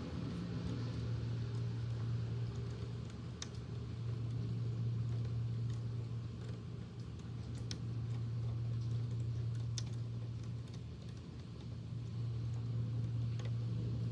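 Electric fan running with a steady low hum, over the even hiss of rain, with a few sharp isolated ticks scattered through.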